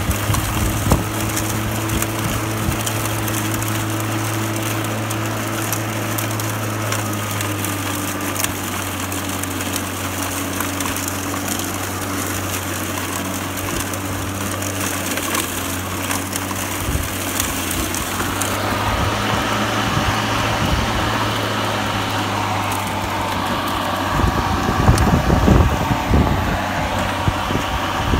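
Greenworks 60-volt battery self-propelled lawn mower running with its blade cutting and mulching tall, overgrown grass: a steady low hum with many small ticks and knocks from the cut material. The sound changes about two-thirds of the way through, and several heavier low knocks come a few seconds before the end.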